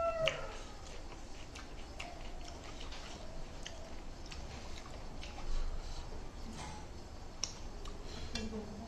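Quiet eating sounds: irregular small clicks and smacks of chewing, with a few sharper ticks scattered through.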